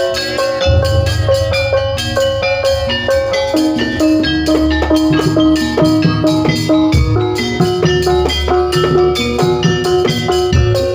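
Jaranan pegon music: ringing gamelan-style metal percussion playing fast, dense notes over drums and a heavy, booming bass.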